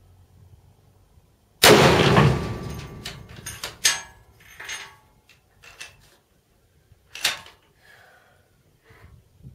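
A Barrett Model 99-1 .50 BMG rifle fires a single shot about one and a half seconds in, the blast ringing out in the plywood shed for about a second. It is followed by a run of sharp metallic clicks as the single-shot bolt is worked, and one more sharp click near the end.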